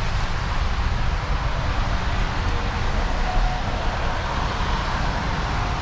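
Steady outdoor background noise: a constant low rumble under an even hiss, with no distinct events standing out.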